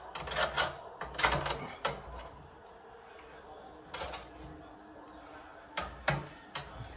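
Metal kitchen tongs clacking and scraping against a wire rack and metal sheet pan while pulling apart roast pork shoulder. There is a quick run of clicks in the first two seconds, then single clicks about four and six seconds in.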